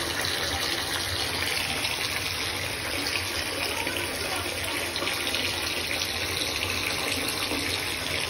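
Bath tap running, water pouring steadily into a filling bathtub.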